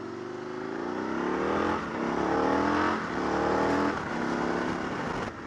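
Motorcycle engine accelerating through the gears: the pitch climbs, drops at three quick upshifts, then holds steady at speed.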